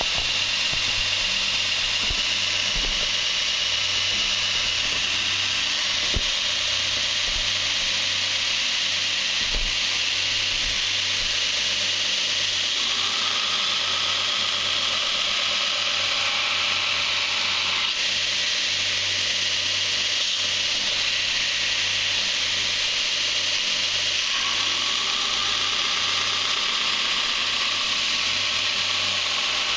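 Belt grinder running, its abrasive belt grinding a D2 steel knife blank: a steady rasping hiss over the motor's low hum. A higher note joins for a few seconds in the middle and again near the end as the blade is worked against the belt.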